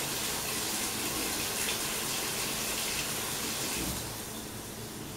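Kitchen faucet running into a stainless steel sink, a steady rush of water. About four seconds in the rush fades noticeably, as the wetted leak-detector switch shuts off the house water supply.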